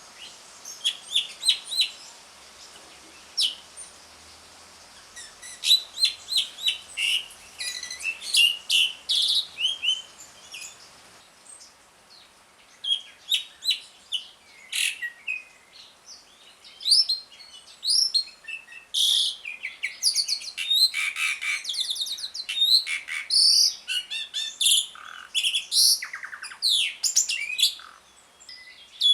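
Asian pied starling (jalak suren) giving its 'ngriwik' chatter: groups of squeaky chirps, whistles and harsh rattling notes. It starts in short bursts with pauses, then becomes nearly continuous in the second half.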